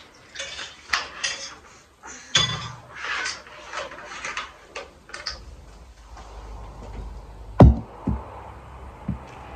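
Boiled chicken being torn apart by hand: a run of short tearing and rustling sounds. Near the end comes one sharp knock, the loudest sound, and then two fainter ones.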